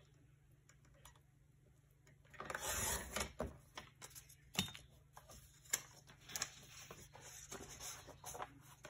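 Paper and craft materials being handled: a short, loud paper rustle about two and a half seconds in, then scattered light taps and clicks.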